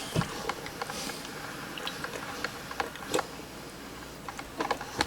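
Drip coffee maker brewing hot cocoa mix: irregular small drips and ticks over a faint steady hiss.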